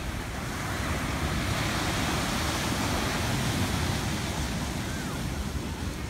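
Steady wash of ocean surf breaking on a sandy beach, with wind buffeting the microphone in a low rumble.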